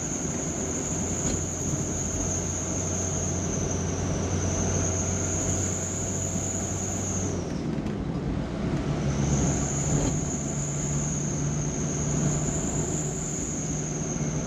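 Engine and road noise from inside a moving vehicle, with a steady high whine over it. About halfway through, the whine and the engine note drop away for a second, then return with the engine running at a higher pitch.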